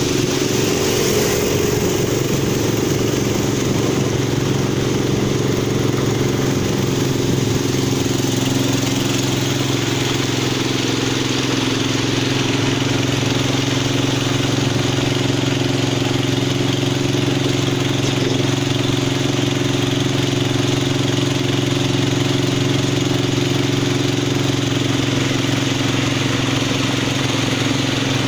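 Longtail boat engine running steadily at cruising speed, an even drone that holds the same pitch and level throughout.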